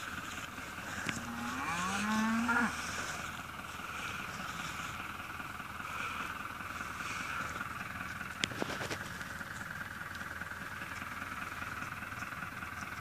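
Cattle mooing once about a second and a half in, the call rising in pitch over about a second. A brief sharp tap comes a little after eight seconds.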